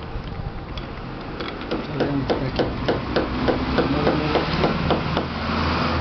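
A rapid series of knocks and clatter from hard plastic blender parts being handled, as the motor assembly is worked out of the blender's plastic base housing.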